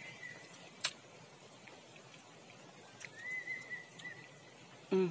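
Forest ambience with a high, steady whistled call that sounds twice, about a second each time, a sharp click just under a second in, and a brief, loud, low voiced sound right at the end.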